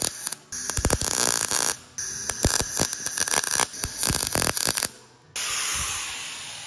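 MIG welder arc crackling and sputtering in stop-start runs as it welds a patch onto thin sheet metal on a 1972 Toyota Corolla's undercarriage. It breaks off briefly twice and stops shortly before 5 s. A steady hiss follows and slowly fades.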